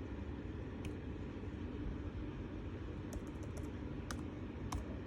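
Keystrokes on a MacBook Air's built-in keyboard while a Wi-Fi password is typed: a few separate soft clicks, with a small cluster a little after three seconds in, over a steady low background rumble.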